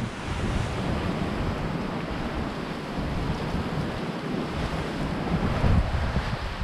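Wind buffeting the microphone over the wash of sea surf: a steady rushing noise with uneven, gusty low rumbles.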